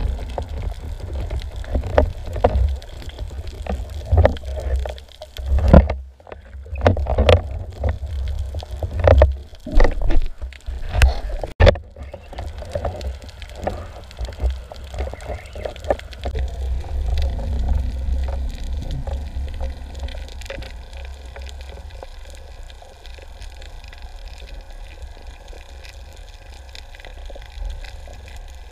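Muffled underwater sound heard through a camera housing: a steady low rumble with a run of sharp knocks and scrapes, as a spear shaft knocks against rock, through about the first twelve seconds. The rest is quieter, even water noise.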